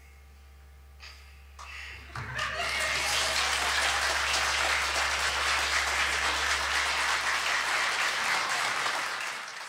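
The last notes of a classical nylon-string guitar die away, and after a few early claps an audience breaks into sustained applause about two seconds in, dying down near the end.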